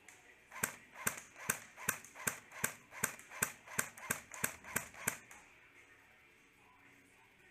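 Airsoft gun firing a quick string of about a dozen single shots, roughly two to three a second, which stops about five seconds in.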